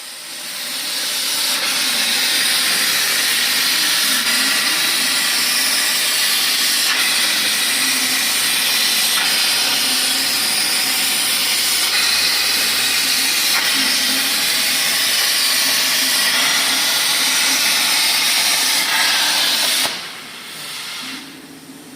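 CNC plasma cutter torch cutting: a loud, steady hiss from the plasma arc and its air jet, which cuts off abruptly near the end, leaving a quieter low hum.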